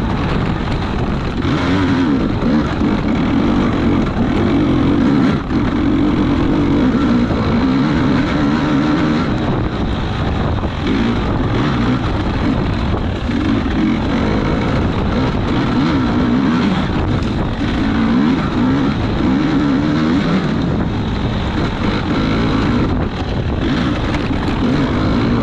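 Engine of an off-road racing vehicle running hard, its revs rising and falling again and again.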